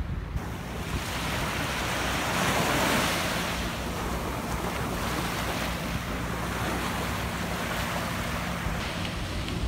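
Ocean surf washing onto a beach, with wind buffeting the microphone. A wave swells to its loudest about three seconds in, then the wash settles to a steady rush.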